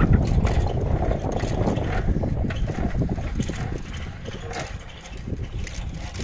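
Wind rumbling on the microphone of a moving pedal bicycle on a concrete road, with scattered clicks and rattles from the bike. The rumble eases about halfway through.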